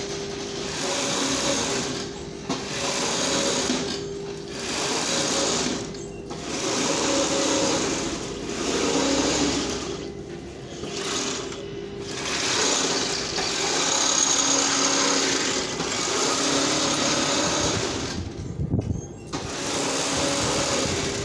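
Industrial mattress sewing machine stitching, its needle running fast in spells of a few seconds with brief stops between them.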